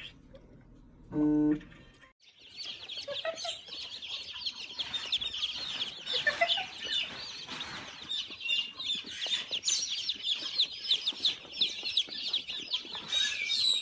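A crowd of baby chicks peeping, many short high chirps overlapping in a dense, unbroken chorus that starts about two seconds in. Just before it comes one brief pitched tone.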